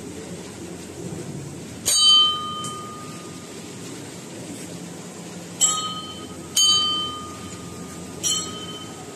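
A hanging temple bell struck four times: once about two seconds in, then three more strikes close together near the end. Each strike rings with a bright metallic tone that dies away within about a second, over a steady low background noise.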